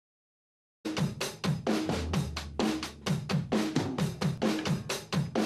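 Music with a busy drum-kit beat (kick, snare, hi-hat, cymbal) over a bass line, starting abruptly just under a second in after silence.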